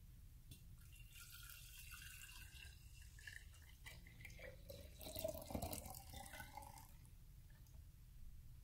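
Frothy, freshly blended celery juice poured from a plastic measuring cup into a glass mason-jar mug: faint splashing and trickling into the glass, loudest about five seconds in and stopping about seven seconds in.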